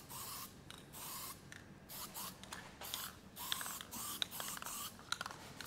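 Aerosol primer can spraying in short repeated bursts: a hiss that stops and starts every half second or so. A few light clicks sound in the second half.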